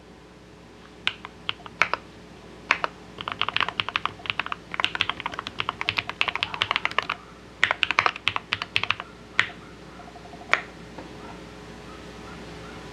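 Typing on an RK Royal RG-987 mechanical keyboard with lubed 62g Holy-Panda-style tactile switches, steel plate, Poron plate foam and silicone-filled case, modded for a thocky sound. A few single keystrokes, then two fast runs of typing, then two lone keystrokes.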